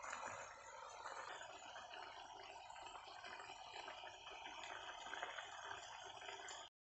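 Tuna roe curry simmering in a frying pan, its thick sauce bubbling with a faint, steady crackle. It cuts off abruptly near the end.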